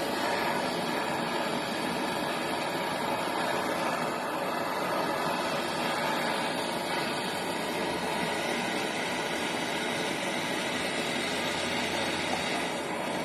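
Handheld MAPP gas torch burning with a steady hiss, heating the turbo housing around the wastegate bush.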